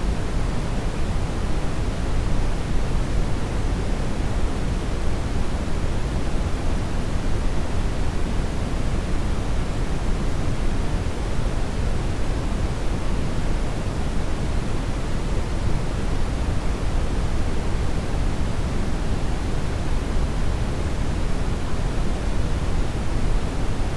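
Steady, unchanging synthetic noise with its strength weighted toward the low end and falling off gradually toward the top, closer to pink noise than to the rising purple noise it is presented as.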